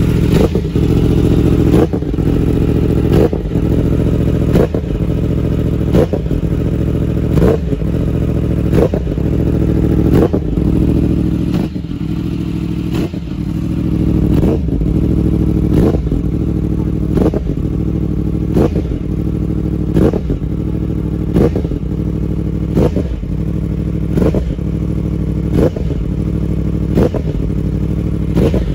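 Yamaha R1M's crossplane inline-four idling steadily through an Akrapovic exhaust in its automatic warm-up mode. A sharp pop comes about every second and a half, and the engine sound dips briefly about halfway through.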